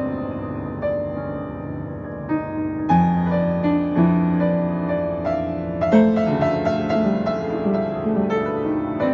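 Upright piano being played: many overlapping struck notes ringing together, turning denser and louder with lower bass notes joining about three seconds in.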